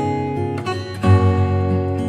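Background music: strummed acoustic guitar with fresh chords struck about once a second.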